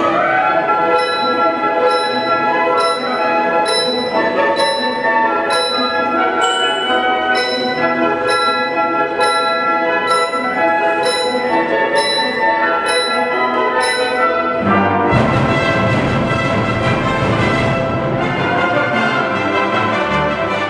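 Symphony orchestra playing, brass prominent, over a steady beat of bright percussion strokes about twice a second. About fifteen seconds in, the sound turns fuller and noisier.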